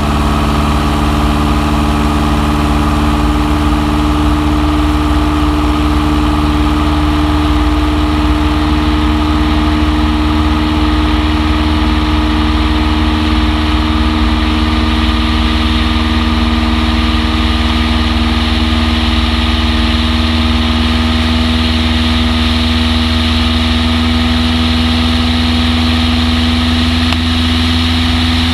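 Long-EZ light aircraft's rear-mounted piston engine and pusher propeller running at a steady drone.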